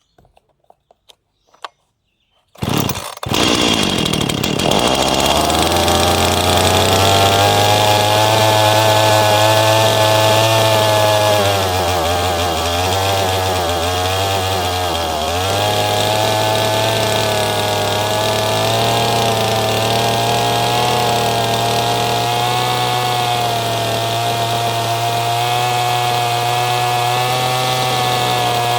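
Poulan Pro two-stroke chainsaw of about 51 cc with a modified, opened-up muffler starting about two and a half seconds in, after a few faint clicks, and then running steadily, its speed wavering briefly around the middle. It runs on old petrol after long storage and sounds alright, not cutting.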